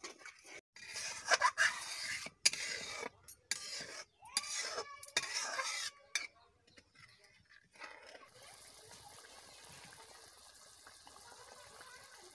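A wooden spatula scrapes and knocks around an aluminium kadai as watery spinach curry is stirred. About eight seconds in this gives way to the steady, faint hiss of the curry simmering on the fire.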